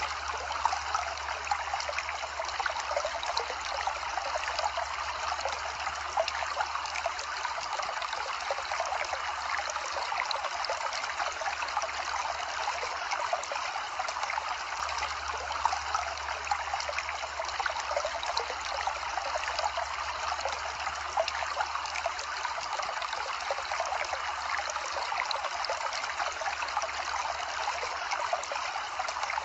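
Steady running water, like a trickling stream, with fine crackling in it and a low hum underneath that grows and fades every several seconds.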